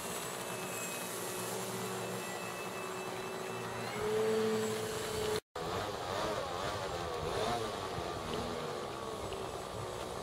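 Brushless electric motor and 14x6 propeller of a radio-controlled aerobatic plane in flight: a steady whine that rises in pitch and gets louder about four seconds in. The sound cuts out for a moment about halfway, and afterwards the pitch wavers up and down.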